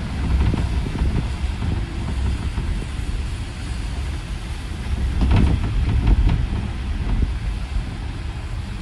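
Inside a moving city bus: a steady low rumble of the bus and its tyres on the wet road, with short rattles and knocks from the body, the loudest about five and six seconds in.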